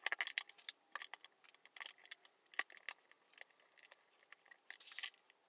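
Compound bow parts being handled and laid out on a cloth-covered table: scattered light clicks and rattles of the metal and plastic parts, with a short denser burst of rattling near the end.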